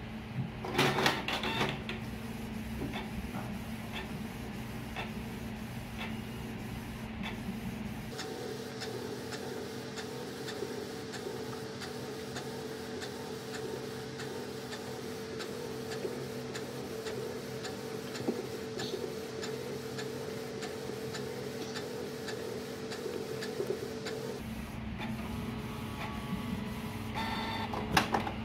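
Canon inkjet all-in-one printer running a copy job. A short clatter about a second in gives way to a steady motor hum, and about eight seconds in this becomes a steady whirr with evenly spaced light ticks as it works. Near the end come louder mechanical bursts as the printed copy is fed out.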